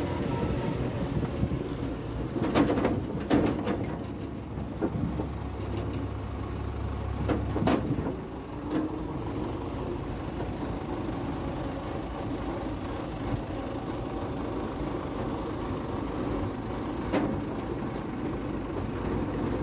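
David Brown tractor's diesel engine running steadily on the road, with a few sharp knocks and rattles in the first eight seconds and once more near the end.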